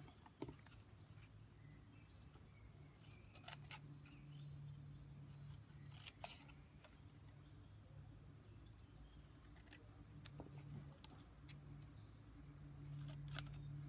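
Scissors snipping through designer paper: faint, separate snips scattered throughout, over a steady low hum.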